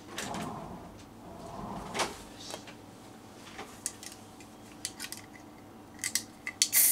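Scattered light taps and clicks of things being handled on a tabletop. A louder cluster of sharp clicks and rustling comes near the end.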